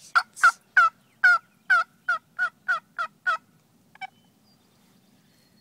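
A run of about ten turkey yelps, roughly three a second, each note short and loud with a pitch that breaks downward, followed by a faint click about four seconds in.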